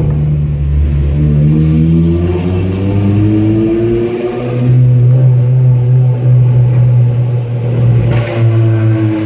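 Toyota Corolla XRS's 2ZZ-GE four-cylinder engine revving loudly with the exhaust cutout open. The revs climb over the first few seconds, drop back about four seconds in, then hold a steadier, higher note.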